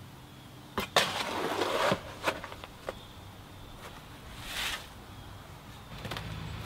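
A shovel scooping wet concrete from a wheelbarrow: a loud scrape lasting about a second, a few knocks, then a shorter swish as a load is tipped onto the gravel.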